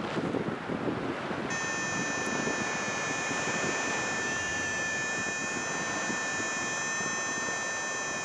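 Wind rushing over the microphone. About a second and a half in, a steady high-pitched electronic tone starts and holds.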